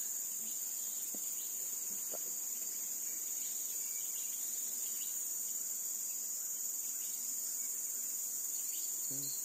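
A chorus of insects in a steady, high-pitched shrill.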